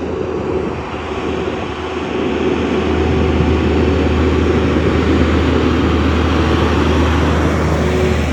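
Loaded big truck's engine pulling hard up a grade, a loud low rumble that grows louder about two and a half seconds in as the truck comes close.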